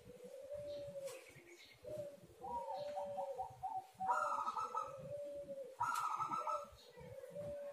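Spotted doves cooing: repeated coo phrases follow one another about a second apart. A lower, smooth coo and a higher, choppier run of notes overlap in places, with louder coos about four and six seconds in.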